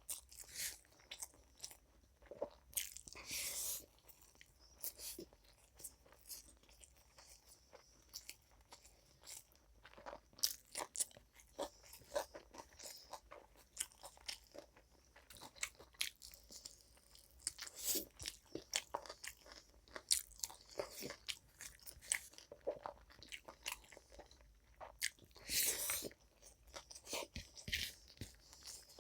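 A person eating close to the microphone: crunchy bites and chewing with frequent small crackles and smacks, plus a couple of louder bursts of crunching, one a few seconds in and one near the end.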